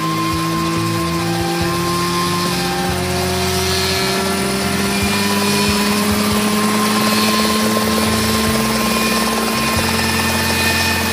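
Experimental homebuilt AW 95 light helicopter running on the ground with its rotors turning, the engine and rotor note rising slowly and steadily in pitch as it speeds up.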